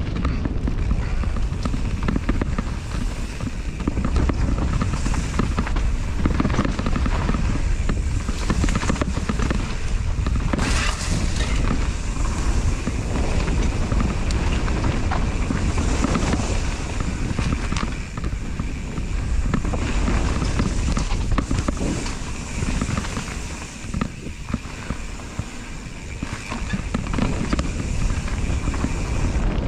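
Mountain bike descending a dirt singletrack: wind buffeting the mounted camera's microphone over the rumble and rattle of the tyres and bike on the rough trail, with a quieter stretch about four-fifths of the way in.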